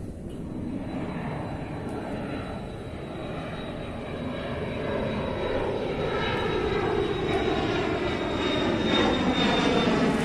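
Jet airliner flying low overhead near the airport, its engine noise growing steadily louder, with a thin high whine over the rush.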